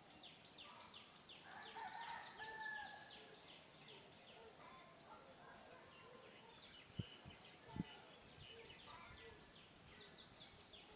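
Faint outdoor birdsong: rapid runs of short, high chirps, with a couple of held whistled notes about two seconds in. Two short knocks sound a little past halfway.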